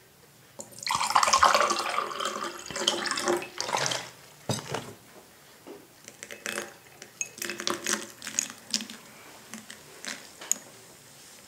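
Water poured into a glass tumbler for about three seconds, then a knock and scattered light clicks and crackles as Brioschi effervescent powder fizzes in the water.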